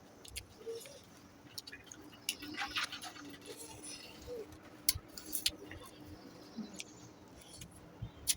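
Close-up eating sounds: chewing and mouth smacks with scattered small clicks, including a crackly stretch a couple of seconds in and a few sharper clicks later. A faint steady hum runs underneath.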